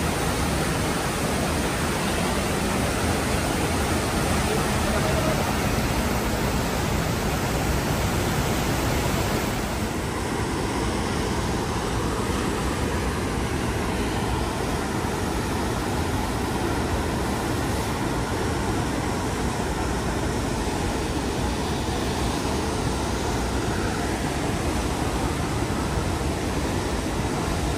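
Steady rush of Johnston Creek's fast whitewater churning through the narrow canyon. About ten seconds in, the rush turns slightly softer and duller.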